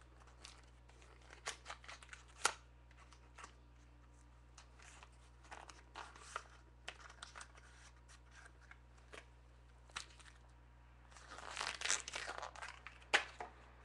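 Faint handling noise of a small cardboard card box and its paper pack being opened by hand: scattered light clicks and rustles. Near the end there is a denser stretch of tearing and crinkling.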